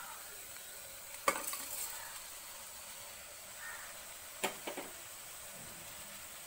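Vegetables sizzling faintly in oil in an aluminium pressure cooker. Two sharp knocks, one about a second in and another past four seconds followed by a couple of smaller ones, as raw rice is added to the pot.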